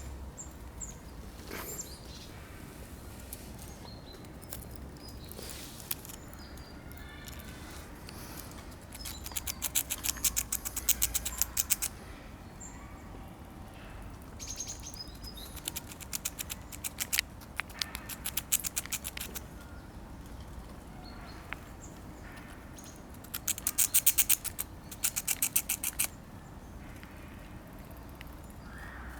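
A squirrel handling nuts close by: two bursts of fast, fine clicking, each a few seconds long, with shorter scattered clicks between, over a low wind rumble.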